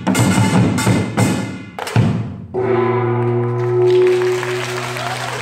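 Samul nori percussion ensemble playing a fast run of drum and small-gong strokes that ends on a final hit about two seconds in. After it a gong rings on as one long, slowly fading tone.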